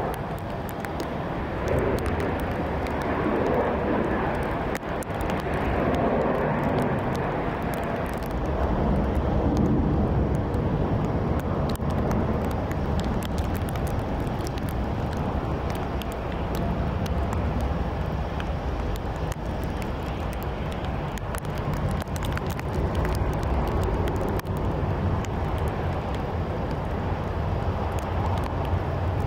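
Steady rumble of an airliner being pushed back by a tug on an airport apron, with a deeper low rumble building from about eight seconds in and scattered faint clicks.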